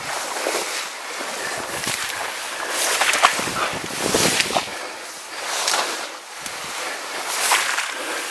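Footsteps through wet marsh grass and reeds, with stems swishing against clothing and boots. The swishes come unevenly, roughly once a second.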